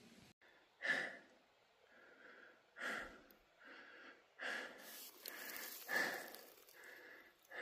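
A man breathing in and out, four or five audible breaths about a second or two apart, with a faint rustle in between.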